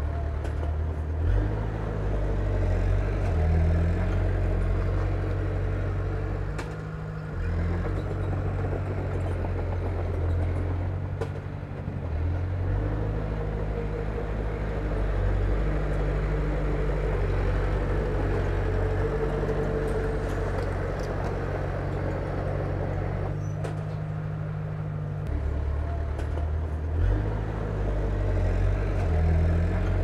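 Komatsu bulldozer's diesel engine running as it pushes soil, its low drone shifting in pitch and strength every few seconds.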